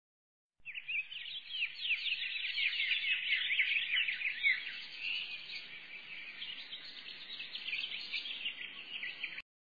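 A chorus of many small birds chirping, quick overlapping chirps piling on top of one another. It cuts in suddenly about half a second in and cuts off abruptly near the end.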